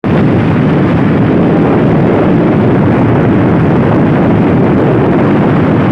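Motorcycle cruising at steady speed on a highway: a loud, unbroken rush of wind on the microphone over the engine and road noise.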